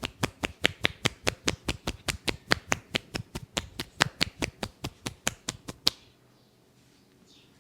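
Percussive massage: hands striking the body in a fast, even rhythm of about five sharp slaps a second, stopping abruptly about six seconds in.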